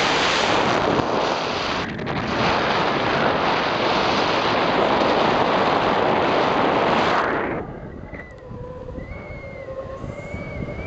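Airflow buffeting the camera microphone of a tandem paraglider in flight: a loud, steady rush of wind that dips briefly about two seconds in and drops off sharply about three-quarters of the way through. A quieter air rush with a faint wavering tone is left after the drop.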